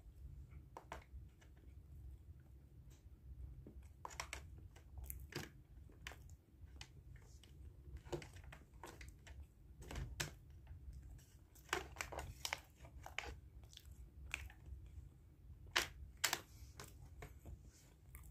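A person chewing food, with irregular small clicks and scrapes of a plastic fork and spoon against a plastic takeaway container, over a low steady hum.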